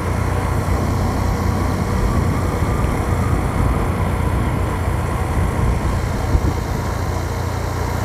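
Motorcycle engine running steadily at cruising speed, heard from the rider's seat, with a constant low rumble of wind and road noise on the microphone.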